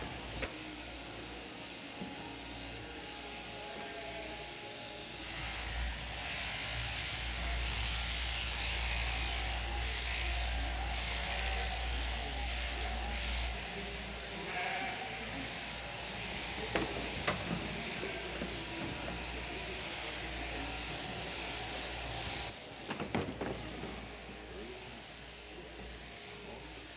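Electric sheep-shearing handpiece running as a sheep is clipped: a steady buzz that gets louder about five seconds in and cuts off near the end, followed by a few knocks. Sheep bleating.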